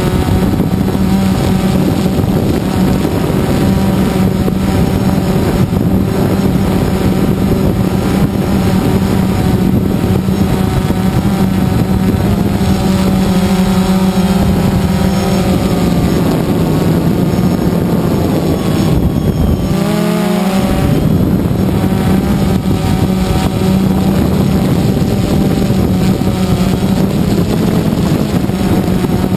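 Drone's electric motors and propellers humming steadily, heard from the camera on board. About two-thirds of the way in, the pitch wavers and dips briefly as the motors change speed, then settles back.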